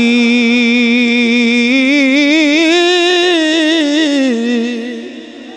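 A man's voice chanting a Quranic recitation (tilawat) in one long melodic phrase with wavering ornaments. The phrase rises in pitch around the middle, falls back, and fades out about four and a half seconds in.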